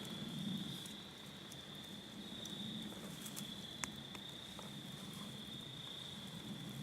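Crickets trilling in one continuous high-pitched tone, with a faint low hum underneath and a few light clicks.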